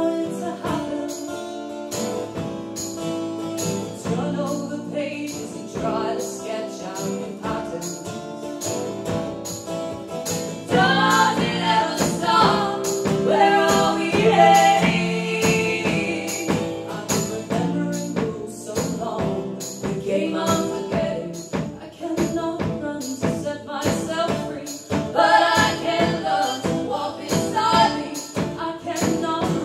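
Live band song: strummed guitars on a steady beat with jingling percussion, and voices singing in harmony, loudest from about eleven seconds in.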